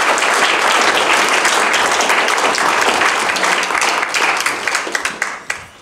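Audience applauding, a dense sustained clapping that thins out over the last couple of seconds and dies away into a few last single claps.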